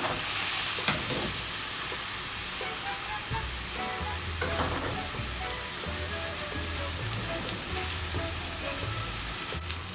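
Spice-coated pineapple slices sizzling in hot oil in a frying pan, a steady hiss; the slices are browned and caramelized, near the end of cooking.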